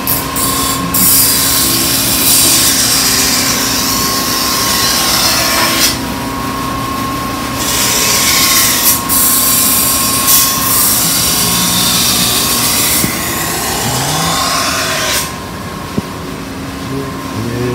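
A knife blade being ground against a motor-driven sharpening wheel: a loud hissing grind in long passes of several seconds, broken by short pauses, over the steady hum of the machine's motor.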